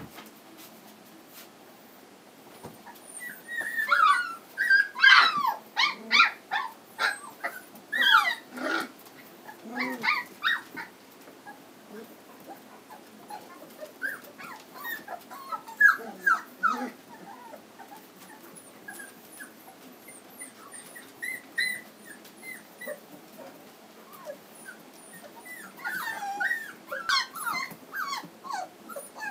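Three-week-old Standard Poodle puppies whimpering and squeaking in short, high calls that come in bunches: a busy spell from about four seconds in, another around the middle, and more near the end, quieter in between.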